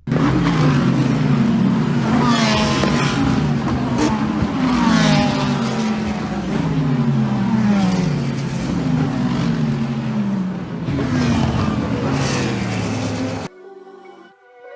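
Race cars at speed, their engine notes falling in pitch again and again as they go past and change down. The sound cuts off suddenly near the end.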